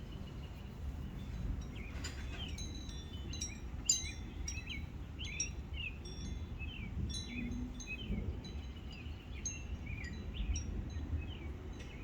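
Birds chirping and singing in many short, irregular calls, mixed with quick high ringing pings, over a low rumble of wind on the microphone.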